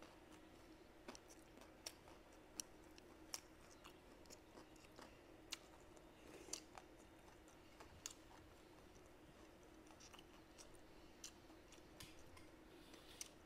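Quiet eating sounds: chewing, with scattered sharp clicks of wooden chopsticks against the rice bowl and plate, over a faint steady hum.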